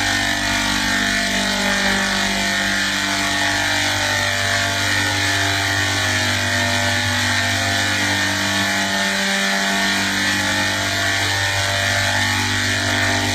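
A steady mechanical drone: constant hiss with a layered, unchanging hum, holding the same level throughout.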